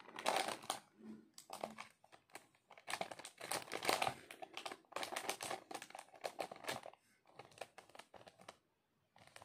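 Crinkly plastic packaging being handled, with pen scratches on it: a run of irregular crackles and light clicks that dies down about seven seconds in.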